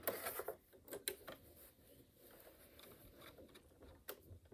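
Faint handling sounds of cloth being positioned under a sewing machine's presser foot: soft rustling of fabric with a few light clicks.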